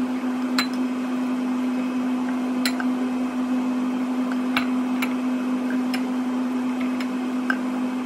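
A slotted spatula scraping and tapping against a saucepan as stewed vegetables are scooped into a bowl, giving a few short scattered clicks. Underneath runs a steady low electrical hum from a kitchen appliance.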